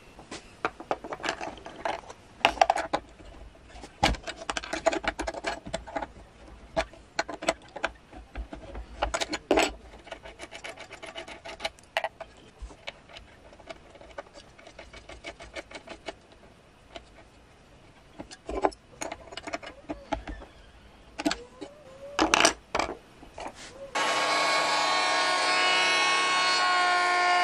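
Clicks, knocks and metal clinks of hands working at a router table while a router bit is changed. Near the end the table-mounted router switches on suddenly and runs at speed with a steady whine.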